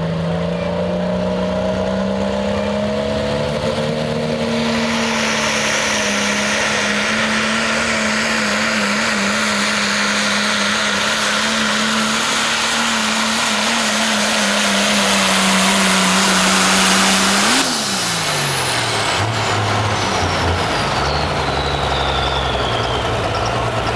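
Turbocharged diesel pickup at full throttle pulling the weight sled, its engine held at steady high revs with a rising hiss building behind it. About seventeen seconds in, the revs drop sharply as the pull ends. A high whine falls away over the next few seconds, the turbo spooling down, while the engine settles to idle.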